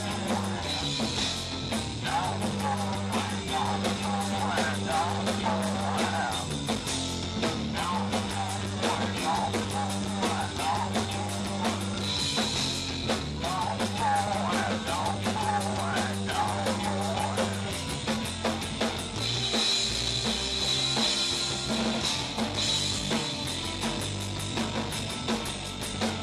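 Rock music with drum kit, guitar and singing, the bass notes holding steady and the cymbals swelling several times.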